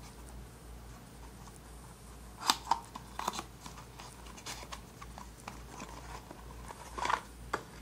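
Small paperboard cube box being opened by hand: scattered scrapes and crinkles of thin card, in a cluster about two and a half seconds in and again near the end.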